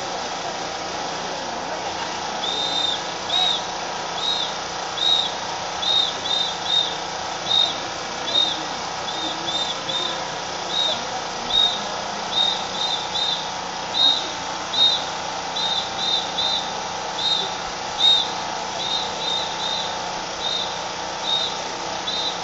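Drill whistle blown in short, high blasts about once a second, some in quick pairs, beating time for a marching drill. It starts a couple of seconds in, over a steady crowd and ambient hum.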